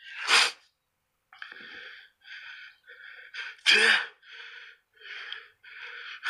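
A man's sharp, noisy breaths, the loudest about half a second in and again near four seconds, with fainter short sounds in between.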